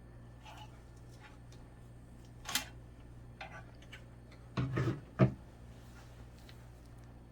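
A few sharp clicks and light knocks of small lab equipment being handled during pipette calibration weighings: one about two and a half seconds in, a short cluster near the middle, and the loudest single click just after. A steady low hum runs underneath.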